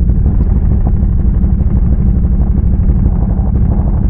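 ATV engine running steadily, a loud, even low rumble with no change in speed.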